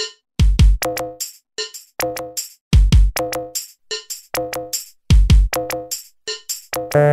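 Background music: an electronic drum-machine beat, with pairs of deep kick drums about every two seconds, crisp hi-hat ticks, and short pitched synth stabs.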